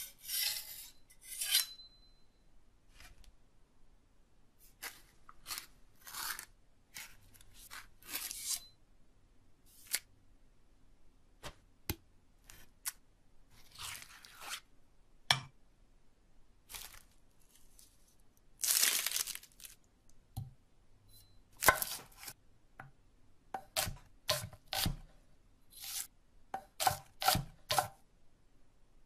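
A sequence of separate kitchen sound effects. It opens with a large knife blade drawn in strokes across a sharpening block, then scattered scrapes, clicks and clinks with quiet gaps between them, a long scrape and a low thud. It ends in a run of ringing knife knocks on a wooden block cutting a stack of dice.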